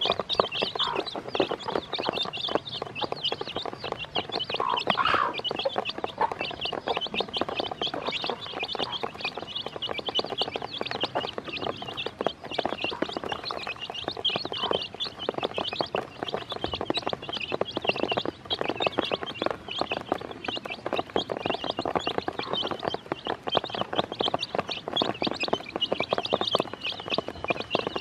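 A brood of baby chicks peeping continuously, many short high cheeps overlapping, with quick taps of beaks pecking feed off the bottom of a plastic basin.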